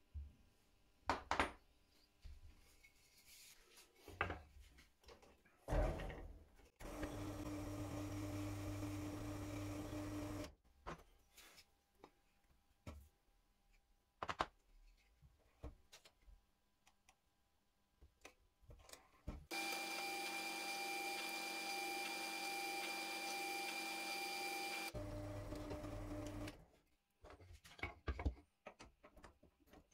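A benchtop drill press motor running twice, steadily with a held hum, first for about four seconds and then for about seven seconds from just before the twenty-second mark. Around and between the runs come scattered knocks and clicks of wooden pieces and tools being handled.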